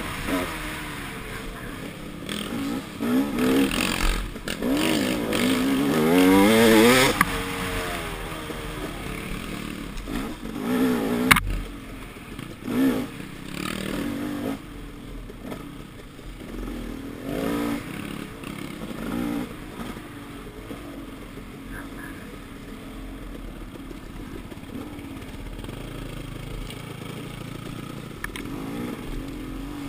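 Dirt bike engine heard from the rider, its revs rising and falling repeatedly under throttle on a woods trail. A single sharp knock comes about eleven seconds in. After that the engine runs lower and quieter, with short throttle blips.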